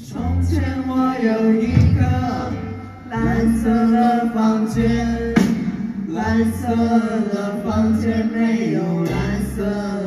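Live band music: acoustic guitars played over a repeating low bass line, with a voice singing along.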